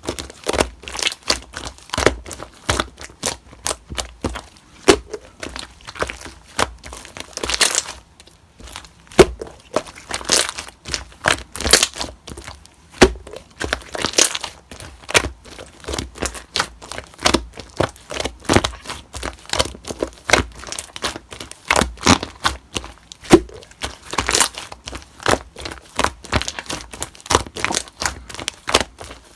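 Slime being squished, stretched and pressed by hand, giving a dense, irregular run of crackling and popping clicks.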